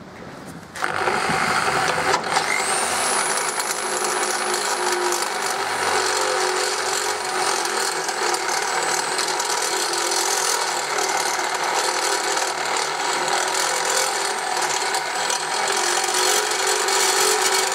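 Electric drill with a step drill bit cutting through the cast metal of a Toyota Supra oil sump, enlarging a 12 mm turbo oil-return hole toward 20 mm. The cut starts about a second in and runs steadily, with a thin high whine rising sharply soon after and then slowly falling.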